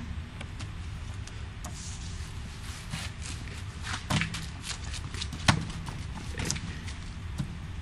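A few light clicks and knocks over a steady low rumble, the sharpest about four and five and a half seconds in.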